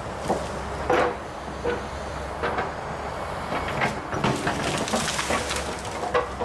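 Volvo ECR145EL excavator engine running steadily, with a string of irregular cracks, snaps and creaks of branches and logs as the machine pulls and pushes through trees and brush.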